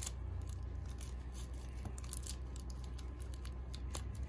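Faint rustling and small plastic clicks of a cloth robe being worked off a plastic action figure's arms and body, over a steady low hum.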